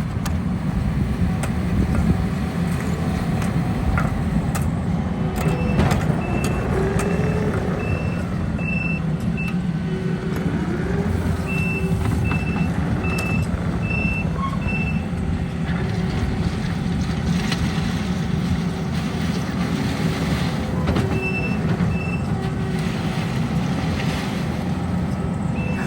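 Heavy paving machinery engines running steadily, with a backup alarm beeping in several spells of evenly spaced beeps, about three every two seconds. The engine pitch shifts a couple of times as the machines move.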